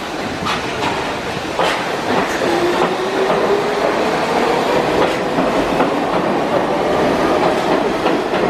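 New York City subway train pulling out of the station. Its traction motors give a whine that rises in pitch as the train speeds up, and the wheels click over the rail joints.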